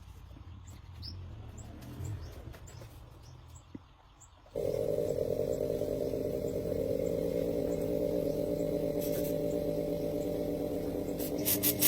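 Faint chirps over a low background hum, then about four and a half seconds in a motor comes in abruptly, already at full level, and runs steadily with an even pitch.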